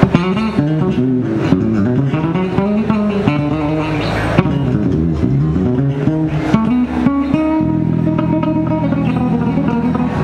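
Live band music led by an electric bass guitar playing fast rising and falling runs over drums, with a few loud crashes. About three-quarters of the way through, the runs give way to longer held notes.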